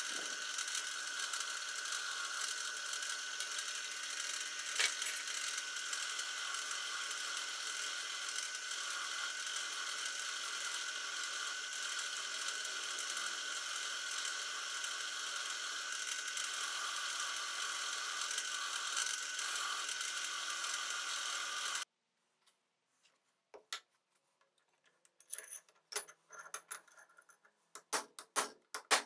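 Drill press spinning a wire wheel brush, with a brass blowtorch burner nozzle held against it: a steady whirring hiss that cuts off suddenly about 22 seconds in. After a short silence, a hammer knocks repeatedly on the torch's steel barrel resting on an anvil block, tapping out a dent.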